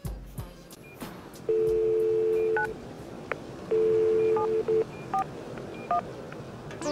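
Telephone tones: two long, steady two-note beeps about two seconds apart, with several short touch-tone keypress beeps after each and a few faint clicks.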